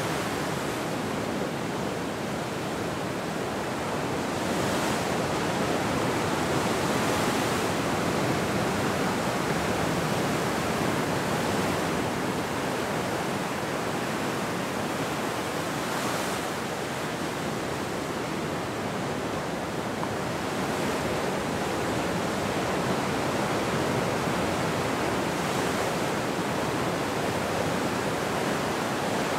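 Ocean surf: waves breaking and foaming in as a continuous rushing wash that swells and eases every several seconds.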